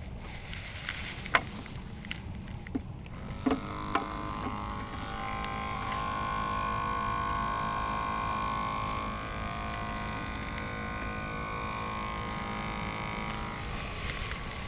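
Battery-powered bait-bucket aerator: a few clicks and knocks as it is handled, then its small air pump starts about three and a half seconds in and runs with a steady hum.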